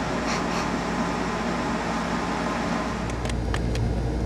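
Steady mechanical hum, like a fan or air-conditioning unit, with a few light clicks near the end.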